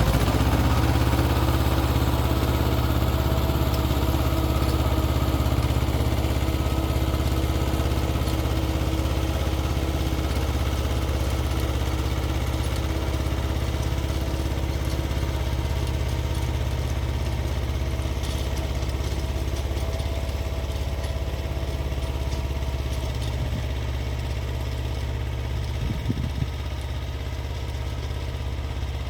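Xingtai 220 mini tractor's diesel engine running under load, driving a 130 cm rotary tiller. It picks up speed at the start, then runs steadily, with a brief clatter about 26 seconds in.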